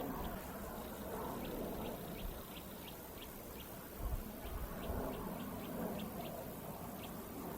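A small bird calling over and over with short, high chirps, several a second with brief pauses, over a low rumble.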